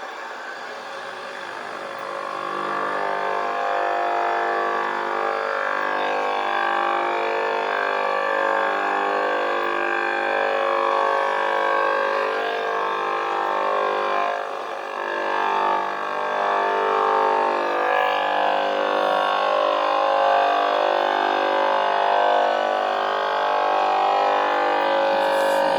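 Shortwave signal heard through a Knight-Kit R-100 receiver's speaker: a sustained tone with many overtones whose pitch shifts in steps, growing louder about two seconds in, with no speech in it.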